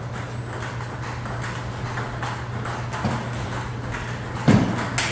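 Table tennis rally: a celluloid ball clicking in quick, even succession off paddles and table, over a steady low hum. About four and a half seconds in there is a louder thud with a sharp crack, then another sharp click near the end.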